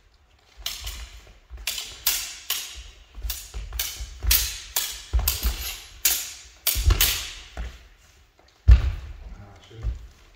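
Steel spadroon blades clashing again and again in a fast exchange of cuts and parries, each strike ringing briefly, over thuds of footwork on a wooden floor. The clashes come thick and fast from about half a second in to about seven and a half seconds, then after a short pause one hard strike lands and another follows near the end.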